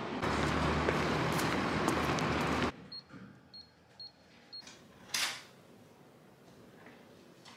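Street traffic noise that cuts off abruptly. Then four short, high beeps from an electronic keypad door lock as a code is punched in, followed by one brief, louder noise as the lock releases.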